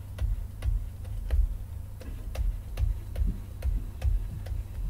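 Light, sharp clicks of a stylus pen tapping on a drawing tablet, about two or three a second, as words are handwritten, over a low, uneven rumble.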